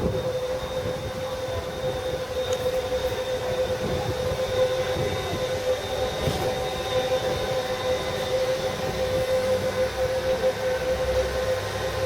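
Monorail running past: a steady electric whine with a fainter high tone above it, over a low rumble.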